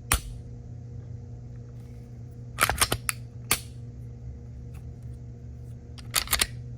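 Dry-firing a Gen5 Glock 47 fitted with a Taran Tactical Grandmaster connector kit, its trigger breaking at about 4 pounds: sharp metallic clicks from the trigger and slide. There is one click at the start, a quick cluster of several about two and a half to three and a half seconds in, and another cluster near the end.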